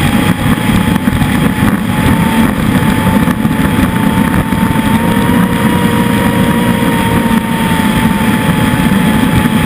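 Motorboat engine running steadily at speed, mixed with the rush of wind and water. A thin whine holds steady and edges slightly higher in pitch about halfway through.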